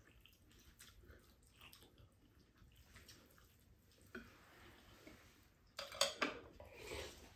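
Spoons and chopsticks clinking faintly against ceramic rice bowls as two people eat, with a few louder clinks about six seconds in.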